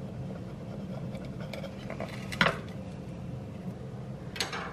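Knife sawing through a baked galette's crisp pastry crust with crackling crunches, ending in a sharp clink of the blade against the ceramic plate about two and a half seconds in; another clatter of utensil on plate comes near the end.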